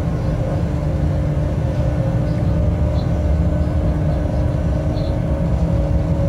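Freight train running at steady speed, heard from the locomotive cab: a continuous low rumble of the wheels on the rails with a steady hum over it, and faint short ticks every second or two.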